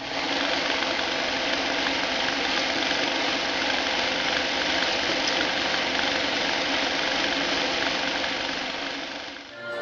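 Old film projector running steadily, the sound effect that goes with a vintage countdown leader; it fades out just before the end.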